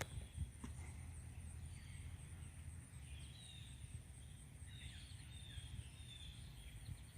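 Faint backyard ambience: small birds chirping with short notes, several of them falling, over a steady high-pitched buzz and a low rumble. There is a sharp click right at the start.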